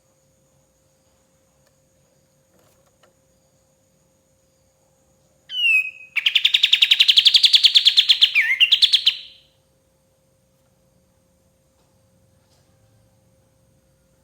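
Kapas tembak bulbul singing one burst of about four seconds, about halfway through: a short downward-swept note, then a rapid, even trill of about eight notes a second.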